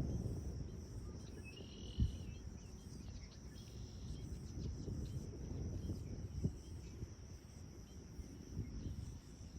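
Outdoor ambience: a steady high insect drone over a low rumble. There is a short bird chirp about two seconds in and a brief low thump at the same moment, with another thump later.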